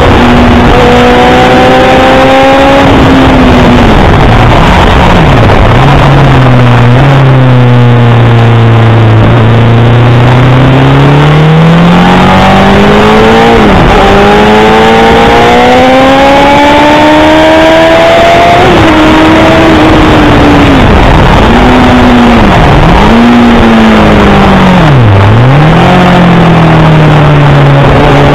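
Honda CBR1000RR's inline-four engine at full speed on a track: the engine note climbs under acceleration, drops sharply and briefly several times as it changes gear, settles lower through a slower stretch, then climbs again, under heavy wind noise. Loud and close, as heard from a camera on the bike itself.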